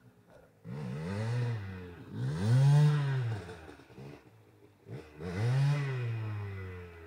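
Motorcycle engine revved three times, each rev rising and falling in pitch, the middle one loudest.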